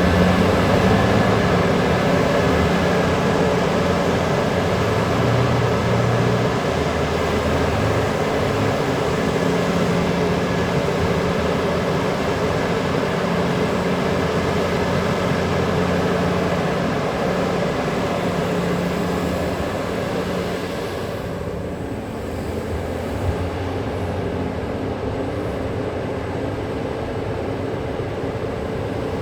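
Large diesel mining machinery running: a steady, deep engine drone with rumble and hiss, the engine note shifting now and then. The hiss thins out about two-thirds of the way through, and there is one short knock soon after.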